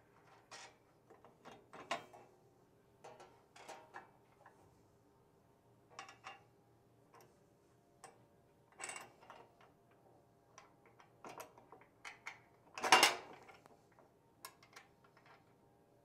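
Steel hardware clicking and tapping as carriage bolts, nuts and a hinge plate are fitted by hand to a mower deck mount, in scattered irregular clicks with one louder metal clank about three-quarters of the way through.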